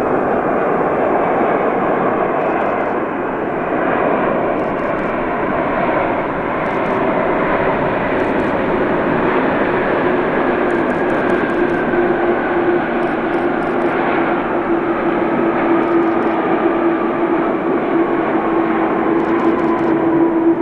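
Boeing 747-400's four turbofan engines running loud through the landing roll after touchdown. A steady hum grows stronger in the second half, and a higher whine slowly falls in pitch.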